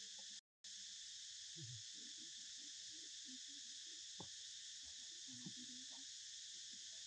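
Faint, steady chorus of insects. It cuts out for a moment about half a second in, and a few soft rustles and two small ticks sound under it.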